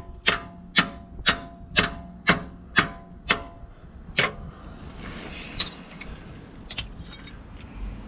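Hammer blows on a metal bar held against a BMW E65's rear lower suspension bush, about two a second with a short metallic ring after each, to try to drive the bush out of the hub carrier. The blows stop after about three and a half seconds, one more follows, then a few lighter clinks of metal.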